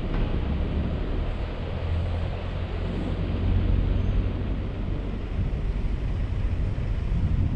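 Wind buffeting the microphone: a steady low rumble with an even hiss above it.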